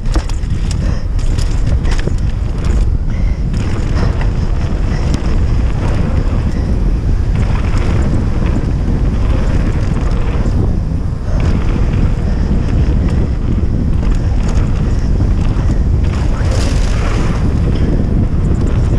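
Heavy wind buffeting on the microphone of a camera riding a downhill mountain bike at speed, over the rumble of its tyres on dirt and gravel. Sharp rattles and knocks from the bike on the rough ground come in the first few seconds.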